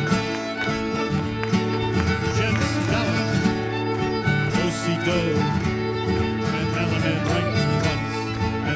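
Live string band playing a reel, the fiddle carrying the tune over guitar backing.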